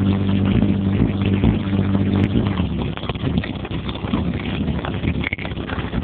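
Vehicle driving on the road, heard from inside the cabin. A steady low engine drone fades out about two and a half seconds in, leaving road and wind noise.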